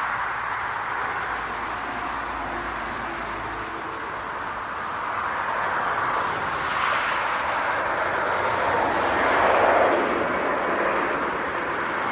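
Jet airliner engine noise: a steady rushing sound that swells to its loudest a little before ten seconds in.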